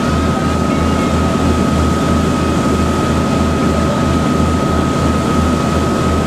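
A boat's engine running steadily under way. It makes a low throb that pulses about three times a second, with a steady high whine above it, over the rush of wake and wind.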